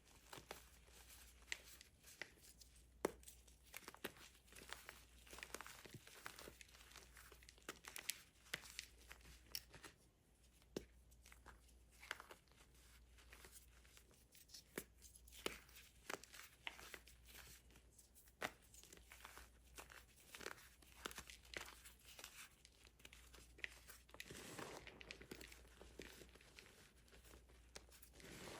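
Reformed gym chalk, pressed from baking soda and cornstarch, being crushed: soft, irregular crunching and crumbling broken by sharp little cracks, with a longer, fuller crumble near the end.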